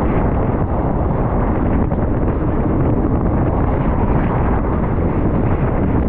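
Loud, steady rumbling of wind buffeting the microphone, with the noise of a moving vehicle beneath it.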